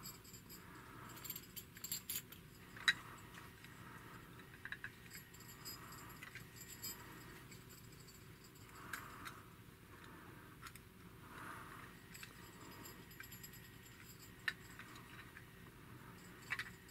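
Metal pin-back buttons faintly clicking and clinking as a hand slides and rearranges them on a fleece blanket, with soft rustling in between. The clicks are scattered and irregular, the sharpest about three seconds in.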